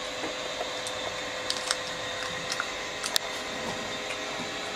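Eating by hand: chewing, and fingers mixing soft dhido and nettle curry on a metal plate, with a few light clicks between about a second and a half and three seconds in, over a steady background hiss and hum.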